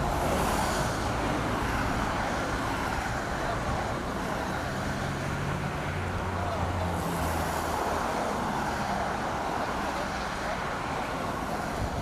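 Steady road and engine noise of a vehicle on the move, with a low engine hum standing out for a couple of seconds around the middle.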